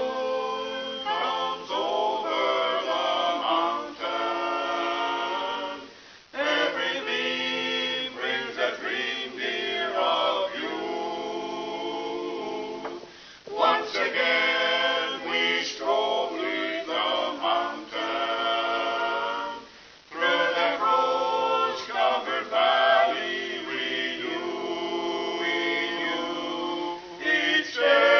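Barbershop quartet singing a cappella in four-part close harmony, in phrases of six or seven seconds with brief breaks between them.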